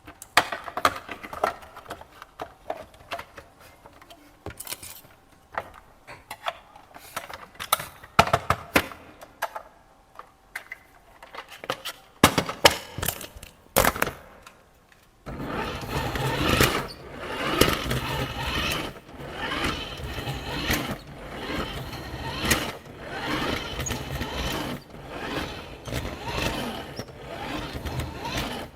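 Plastic clicks and knocks of a remote-control toy being handled. About halfway through, the toy's small electric motor and plastic gearbox start running with a busy whirring and grinding that swells and dips every second or two.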